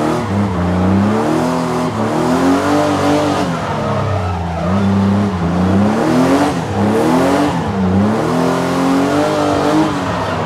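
BMW E36 drift car's engine revving up and down over and over, its pitch climbing and dropping about every two seconds as the car is slid around.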